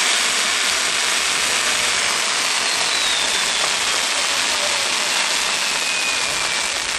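Ground-firework fountains spraying sparks with a steady, loud hiss. Through the second half a thin whistling tone slides slowly down in pitch.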